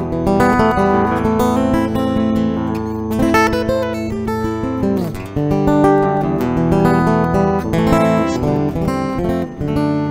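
Background guitar music: plucked and strummed notes, with a falling slide about halfway through.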